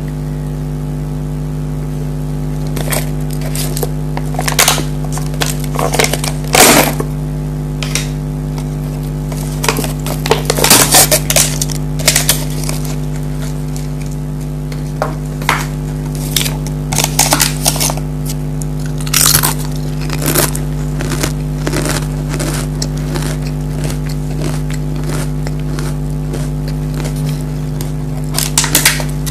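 Pringles potato crisps being bitten and chewed close to the microphone: irregular sharp crunches, some in quick clusters, over a steady low hum.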